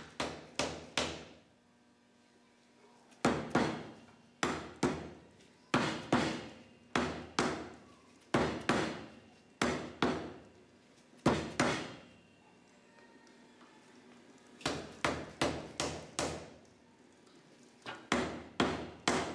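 Dead blow hammer striking a Dana 60 front axle spindle again and again, in quick runs of several blows with short pauses between. The spindle is stuck and is being knocked loose.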